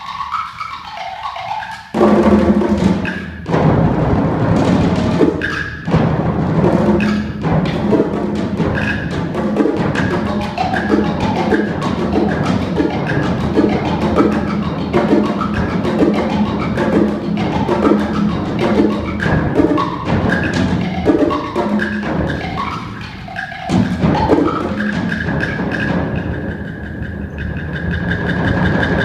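Solo multi-percussion: fast, dense strokes on drums (bongos, tom-toms, bass drum) and wood blocks. After a quieter opening the playing bursts in about two seconds in and runs on in rapid, driving patterns.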